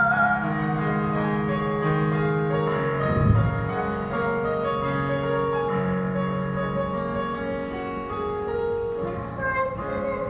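Instrumental break in a musical-theatre song: piano accompaniment under held melody notes. A brief low thump comes about three seconds in.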